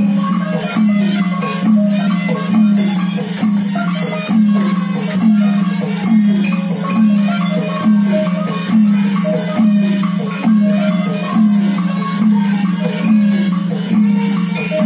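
Burmese traditional music: a low, pitched drum-like beat a little faster than once a second, with short notes that slide downward in pitch and bright mallet-percussion notes over it.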